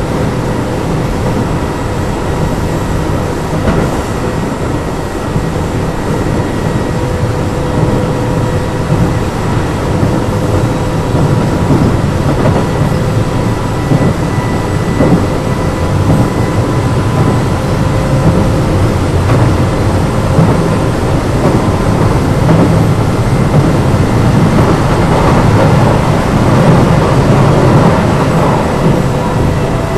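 Keio 7000 series electric train running, heard from inside the car: a steady rumble of wheels on rail with scattered clicks and a thin steady whine from the electrical equipment. The rumble grows louder near the end.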